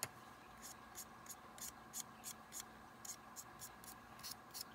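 Small brush being rubbed in a pan of PanPastel weathering colour: faint, quick scratchy strokes, about three a second, over a low room hum.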